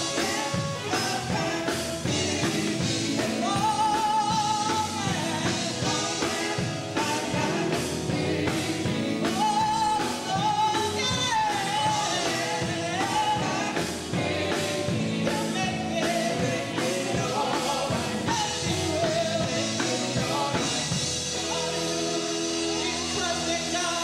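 Live gospel music: a women's vocal group sings, a lead voice over backing harmonies, with electric guitars and a drum kit playing along.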